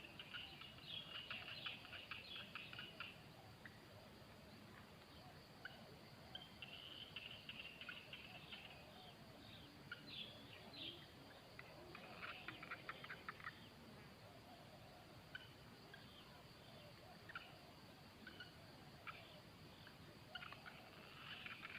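Faint bird calls: high chirps and rapid chattering trills that come and go in short bouts every few seconds.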